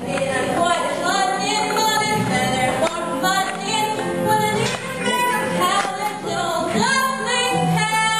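A musical number from a stage musical: singing with instrumental accompaniment.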